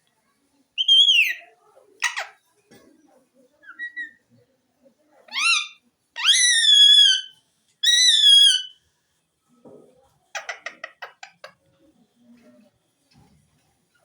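Pet green parrot calling: a few loud, pitched whistle-like calls, some falling in pitch and two held for about a second with a wavering pitch, then a quick rattling run of clicks.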